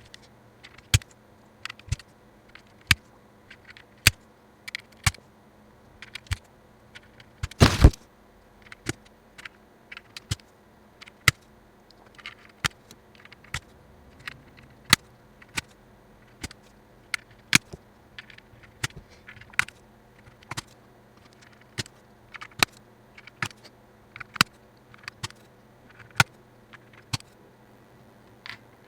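Mechanical keyboard switches being pressed one by one into the hot-swap sockets of a barebone GMMK 60% board, each seating with a sharp click about once a second. About eight seconds in there is one louder clatter.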